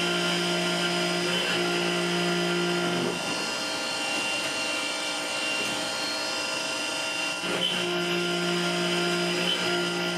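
CNC multi-axis turning center running with a steady mechanical hum. A lower motor tone comes in for a few seconds at the start and again about two-thirds of the way through, as the machine works through its chamfering and grooving program.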